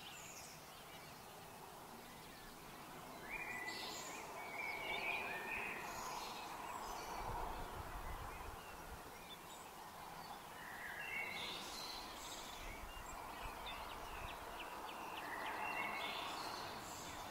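Outdoor ambience by a pond: a faint steady background noise with small birds chirping in three short bursts, early, midway and near the end.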